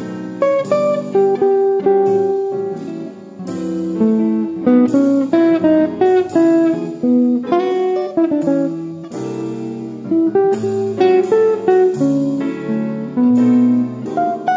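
Background music: plucked guitar playing a melody with chords, steady throughout.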